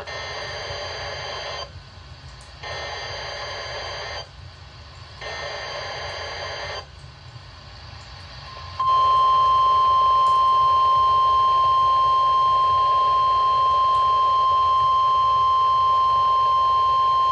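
NOAA Weather Radio weekly test signal: three short screechy bursts of SAME digital header data, about a second apart, then a single steady warning alarm tone of about 1050 Hz, louder than the bursts, that starts about nine seconds in and holds to the end.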